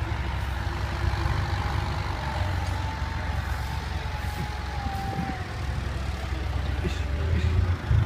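Heavy truck engine running on the road with a steady low rumble, growing louder near the end as it comes closer. A faint tone drifts slowly downward through the middle.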